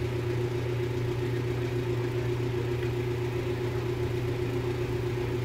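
A steady low mechanical hum that does not change.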